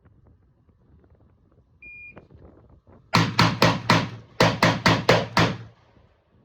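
An AK-pattern rifle in 7.62x39mm fired rapidly: nine shots in two quick strings, four and then five, at about four shots a second. A short high beep sounds about two seconds in, before the shooting.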